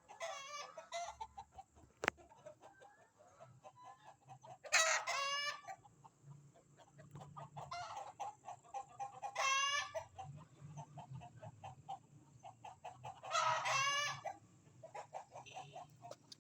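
Chicken hen calling: three loud squawks about four seconds apart, with softer clucking in between.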